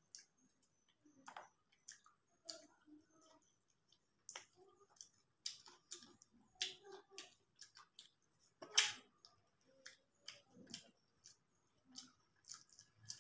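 Close-miked chewing and lip smacking of a person eating chicken masala with her fingers: a string of irregular wet clicks and squelches, with fingers squishing rice and curry near the end.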